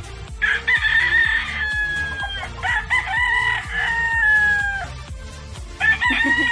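Rooster crowing three times, each crow ending in a long, slightly falling held note, the third starting near the end; background music with a steady beat runs underneath.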